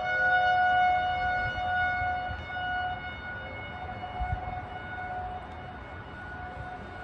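Outdoor tornado warning siren sounding several steady tones at once, loudest in the first two seconds and then slowly fading. A low rumble runs underneath, with a single low thump about four seconds in.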